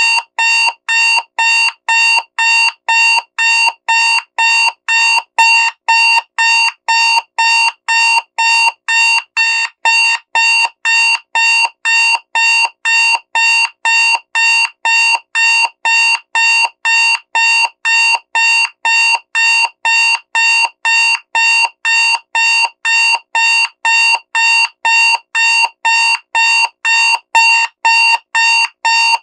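Digital alarm clock sounding: a loud electronic beep repeating evenly about twice a second.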